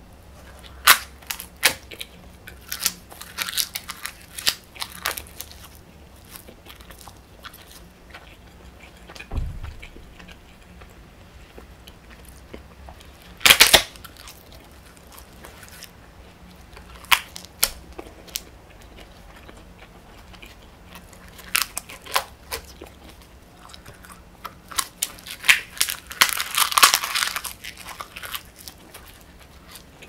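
Close-up biting and crunchy chewing of thin sheets of edible colored paper, heard as clusters of crisp crackles with short pauses between. The loudest crunch comes midway and a dense run of crackling comes near the end; there is also one dull low thump about nine seconds in.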